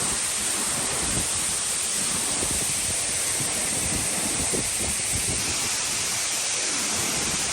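Waterfall rushing steadily, a constant even sound of falling water.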